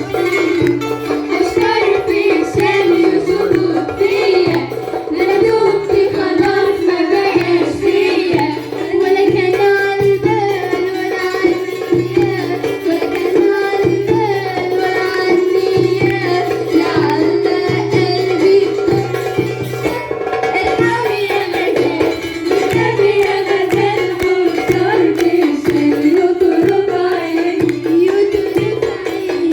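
Port Said simsimiyya folk music played live: the plucked simsimiyya lyre over a steady percussion rhythm, with a woman singing.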